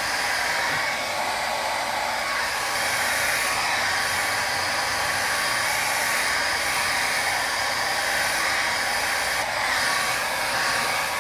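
Small handheld hair dryer blowing steadily while drying damp hair, its even rush of air wavering slightly as it is moved around the head.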